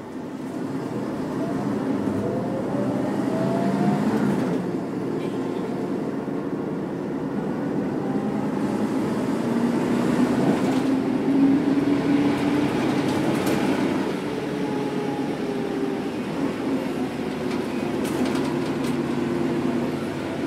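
Mercedes-Benz O405 city bus's OM447H six-cylinder diesel pulling away and accelerating, getting louder just after the start. The engine note climbs in pitch twice, about two seconds in and again around ten seconds in, and the ZF four-speed automatic changes up between the climbs.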